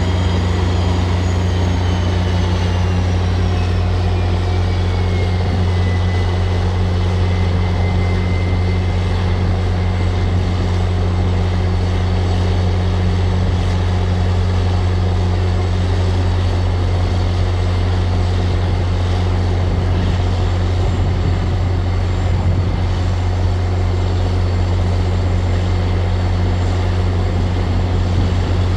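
Diesel locomotive engine running steadily with a deep, even drone, and a high whine that falls in pitch over the first several seconds.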